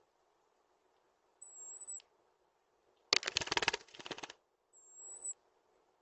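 European robin clattering against a bird-table camera as it attacks its own reflection in the lens: a rapid run of taps and wing flutter lasting about a second, a little past halfway. A thin high whistle, ending in a quick drop, sounds once before it and once after.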